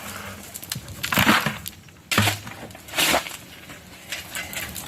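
Stones and rubble being broken up and moved on a building site: three short crunching, scraping bursts, about a second apart.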